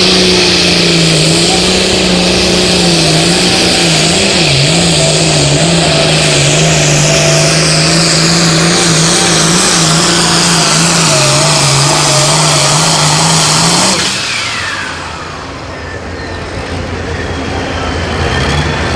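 Modified International Harvester pulling tractor's diesel engine running flat out under load as it drags the sled, with a high whine over the engine note. About fourteen seconds in the engine note suddenly drops off as the throttle is cut at the end of the pull, winding down, then a quieter engine note comes back near the end.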